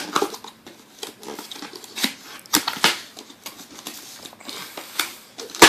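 Handling of a cardboard box and its packaging as it is opened, with irregular rustling, scraping and clicks. Near the end comes a sharp knock as a cooling fan is dropped.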